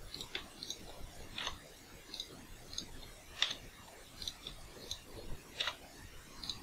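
Faint clicks of a computer mouse's buttons and keyboard keys, about a dozen short ticks at irregular spacing, some in quick pairs.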